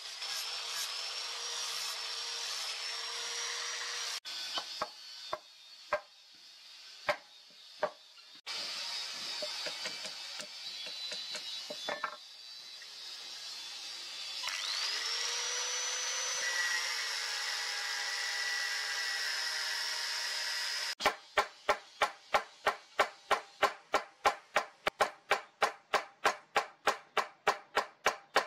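Angle grinder with a flap disc grinding the steel machete blade, then scattered knocks and more tool noise, and a power tool whining up to speed and running steadily. Near the end a hammer strikes the pin through the wooden handle in a fast, even run of taps, about four a second, and these taps are the loudest sound.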